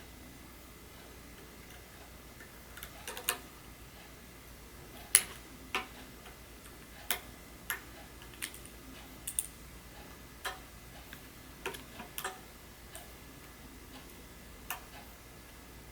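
Irregular small sharp clicks and taps of small tools and phone parts being handled while an iPhone is reassembled, about a dozen over several seconds, the loudest about five seconds in.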